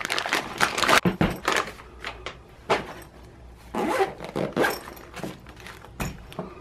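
A plastic packaging bag being torn open and crinkled, then a fabric case's zipper pulled open about four seconds in, with short knocks of handling.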